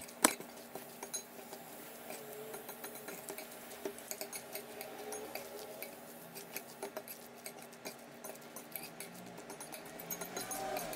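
Metal spoon and fork mixing a mashed chickpea salad in a bowl, with light irregular clinks and scrapes of the utensils against the bowl and one sharper clink right at the start.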